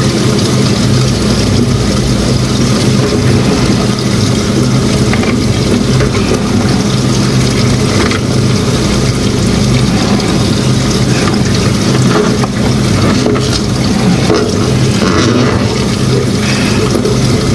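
A motor or engine running steadily with a low hum, with faint scattered knocks and rattles over it.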